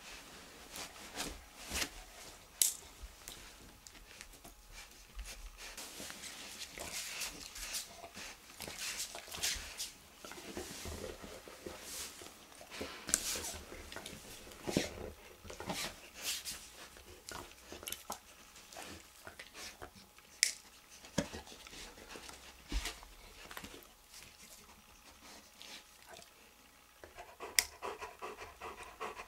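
Panting breaths, with scattered sharp metallic clicks from the staple remover and cutters working at steel skin staples.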